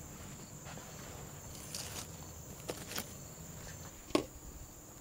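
Low, steady rumble of a wood fire under a covered pan of boiling water, with a steady high-pitched insect drone. A few sharp clicks, the loudest a knock about four seconds in as the glass pan lid is handled.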